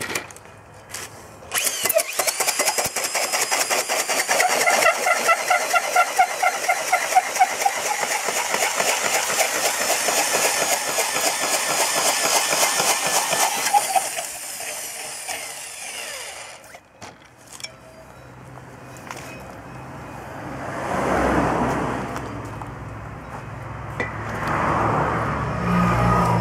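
Heavy-duty electric drill spinning a conical pole-sharpening head that shaves a point onto a timber post. A fast, rattling chatter starts suddenly about two seconds in, runs for about twelve seconds, then stops. Quieter, lower noises follow.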